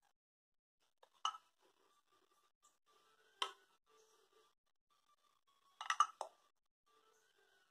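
A metal spoon clinking against the dishes three times, about a second in, midway and near the end, while scooping a thick cream sauce out of a bowl.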